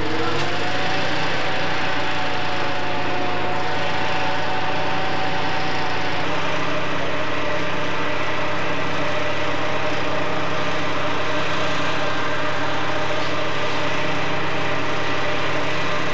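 An engine running steadily and loudly, its pitch rising slightly right at the start and shifting again about six seconds in.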